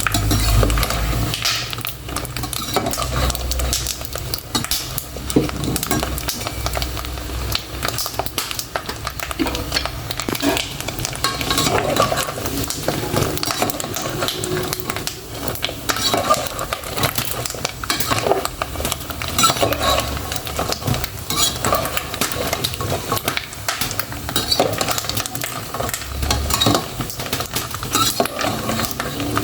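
Pork rinds (torresmo pururuca) frying in hot oil: a dense, continuous crackle of small pops and sizzling.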